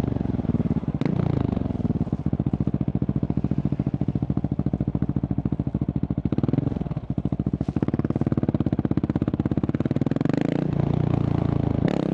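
Husqvarna 701's single-cylinder engine through a Remus exhaust, idling with an even, pulsing beat and blipped briefly on the throttle a few times.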